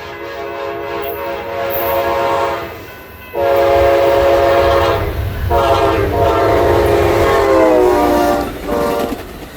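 Amtrak P42DC diesel locomotive's multi-note air horn sounding a series of blasts: a long one, a louder one after a short break, then a long blast that drops in pitch as the locomotive passes, and a short toot near the end. A low rumble from the passing train runs under the horn from the second blast on.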